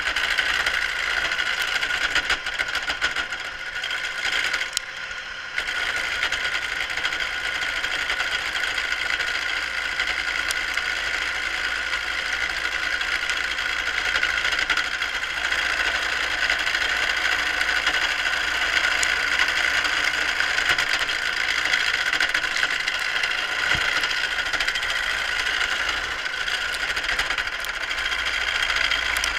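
Carbide wood-turning tool cutting a spinning wooden spindle on a Craftsman wood lathe, with the lathe's motor running: a steady scraping hiss. It lets up briefly about four to five seconds in, then carries on.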